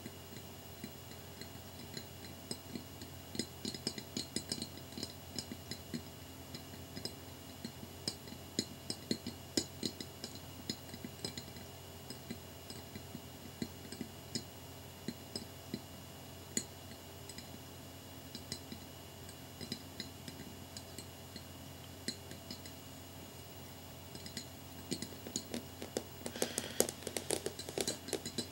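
Long fingernails tapping and clicking on a small square glass mirror in irregular flurries of light taps, with a faster, denser run of tapping near the end.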